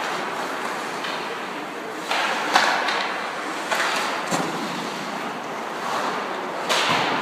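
Several sharp knocks, about five, over a steady rushing background noise; the loudest comes about two and a half seconds in.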